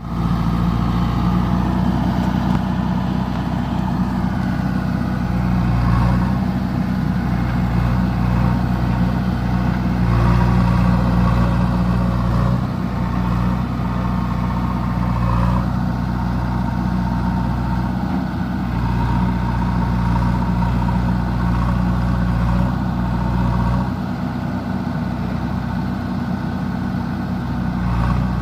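JCB 3DX backhoe loader's diesel engine running steadily while working, its note easing and picking up a few times.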